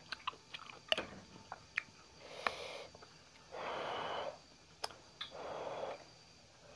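A person blowing on a forkful of hot lomi noodles to cool them: three soft puffs of breath, each under a second long, starting about two seconds in. Before the first puff there are a few light clicks of a metal fork against the plate.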